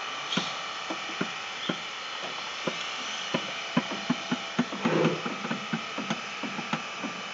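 Wooden two-foot-gauge boxcars rolling slowly, their wheels and car bodies giving a string of irregular sharp clicks and knocks that come more often after about three seconds.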